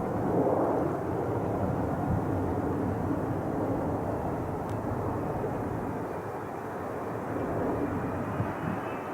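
Jet airliner engines rumbling as the plane passes, loudest about half a second in, with a faint high whine coming in near the end.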